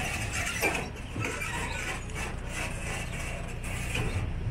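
Resort shuttle train running at low speed: a steady low engine hum with scattered rattles and knocks from the carriage.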